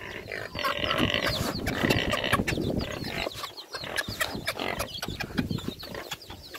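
Chickens clucking, with short pitched calls about one and two seconds in, over many small clicks and rustles.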